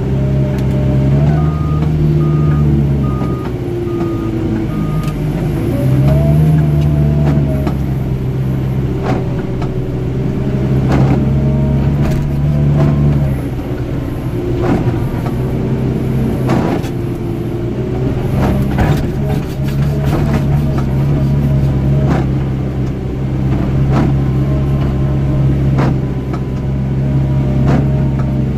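John Deere 244K compact wheel loader's diesel engine running under varying load, its pitch dropping and rising as it works. About five short reversing-alarm beeps sound near the start, followed by scattered knocks and clanks from the snow pusher and machine over the middle stretch.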